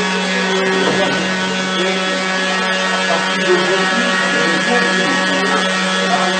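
A loud, steady drone with a strong low hum, and indistinct voices murmuring over it.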